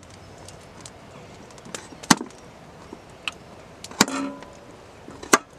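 Knife slicing a potato on a thin plastic chopping board: a few irregular sharp knocks as the blade strikes the board, the loudest about two, four and five seconds in, the one near four seconds with a brief ring.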